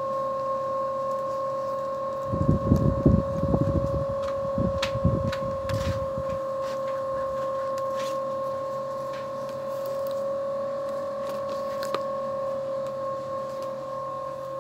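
A steady high-pitched hum with one overtone. For a few seconds near the start, low muffled knocks and rustling sit under it, with a few faint clicks.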